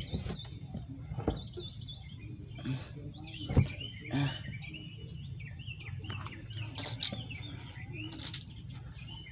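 Small birds chirping and twittering over a steady low rumble, with one sharp knock about three and a half seconds in.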